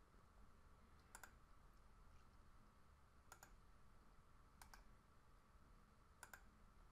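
Four faint pairs of computer mouse clicks, each pair two quick clicks, spaced a second or more apart over near silence.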